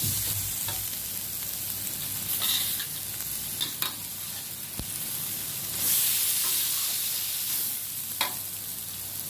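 Egg and vegetables sizzling in a hot wok with a steady hiss as the added water cooks off. A metal spatula stirs them and scrapes the pan now and then. The sizzle swells louder about six seconds in.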